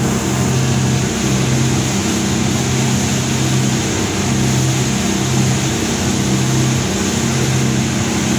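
Engines of a fast passenger boat running steadily at cruising speed: a low, even drone with a strong hum, over a steady rushing noise.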